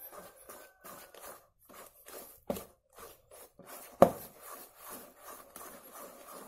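A spoon stirring cake batter in a stainless steel bowl: repeated wet scraping strokes, about two a second, with two sharper clinks of the spoon against the bowl, about two and a half and four seconds in, the second the loudest and briefly ringing.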